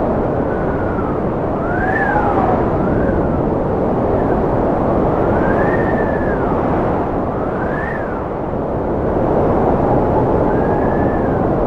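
Strong wind blowing steadily, with whistling howls that rise and fall in pitch every couple of seconds.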